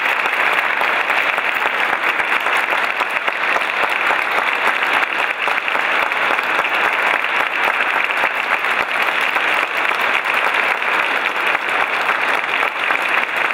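Audience applause: a crowd clapping steadily and fairly loudly, a dense even patter of many hands.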